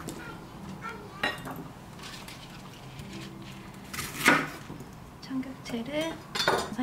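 Chef's knife slicing through bok choy stems and knocking on a wooden cutting board: a few sharp cuts, the loudest about four seconds in, with smaller knocks near the end.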